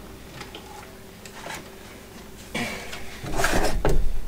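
Plastic-bodied cordless impact drivers being handled and shifted on a tabletop: a few light knocks, then from about three seconds in a loud stretch of rubbing and knocking as the tools are picked up and moved.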